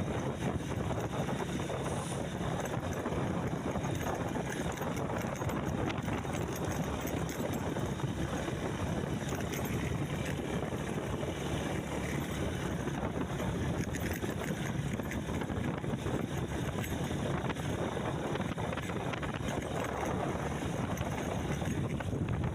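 Steady low rumble with wind rushing over the microphone.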